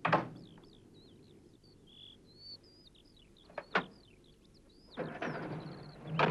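Birds chirping and singing throughout. A sharp knock comes at the very start and two clicks a little before four seconds in, like a van door being shut. About five seconds in, the van's engine starts up, settling into a steady hum at the very end.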